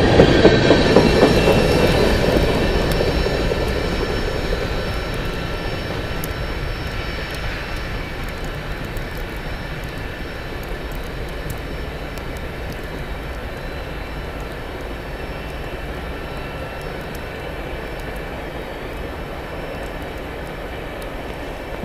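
Norfolk Southern freight train rolling away, its wheel-on-rail rumble fading over the first several seconds, with thin high squealing tones from the wheels fading with it. A steady rushing noise remains after it.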